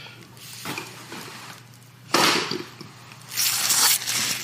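Food packaging and utensils being handled as a meal is set out: rustling and clattering, with a few short, sharp bursts about two seconds in and again a second later.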